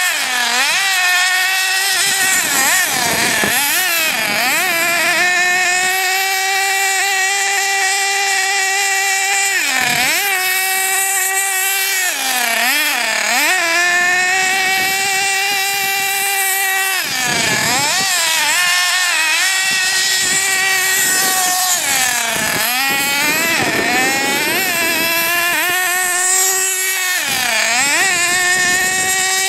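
Nitro RC buggy's small glow-fuel engine running hard as the buggy is driven: a steady high-pitched whine held at speed, dropping away and climbing back about seven times as the throttle is let off and opened again.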